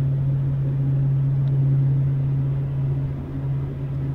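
A Great Lakes freighter's twin EMD diesel engines running with a steady low drone as the ship moves out through the canal close by.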